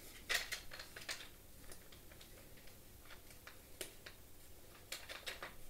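Large plastic screw of a Hoover Breeze Evo vacuum's handle being twisted in by hand: faint, irregular plastic clicks and ticks, with a few sharper ones about a third of a second in and near the end.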